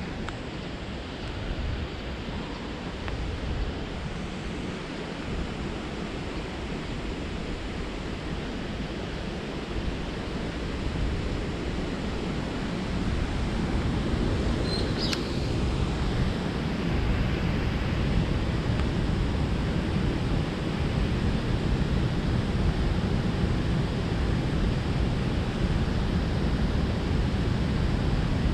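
Wind rushing over a head-mounted GoPro's microphone while riding a bicycle: a steady noisy rush that grows louder about halfway through, with one sharp click a couple of seconds later.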